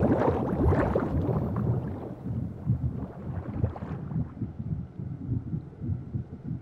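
A low, irregular rumbling made of many small crackles, with no music. The brighter, hissier top of the sound cuts off about four seconds in, leaving only the low rumble.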